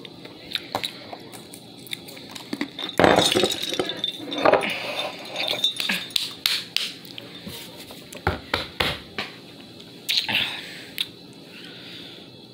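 Hands handling things close to the microphone: a string of sharp clicks and clinks, with a louder rustling stretch about three seconds in.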